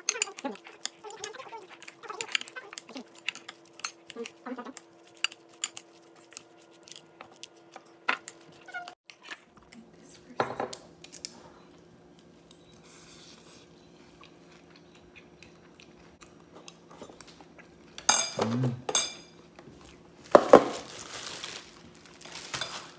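Metal fork clinking and scraping against a ceramic bowl as a salad is tossed: a rapid run of light clicks for the first several seconds. A few louder bursts of sound follow near the end.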